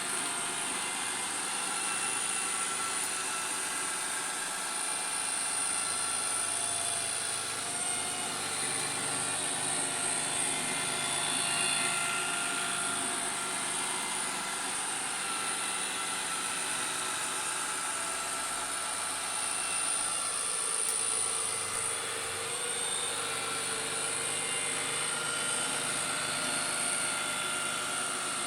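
Bralko Galaxy robot vacuum running on carpet: a steady suction fan whine, high-pitched, over a lower motor hum.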